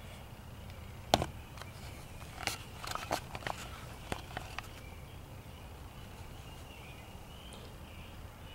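Clicks and light rattles of a wire live-trap cage: one sharp click about a second in, then a scatter of smaller clicks over the next few seconds. Faint steady insect chirring runs underneath.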